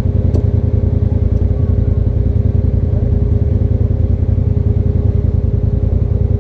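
Engine of a Polaris RZR Turbo side-by-side idling steadily, a fast, even low pulsing.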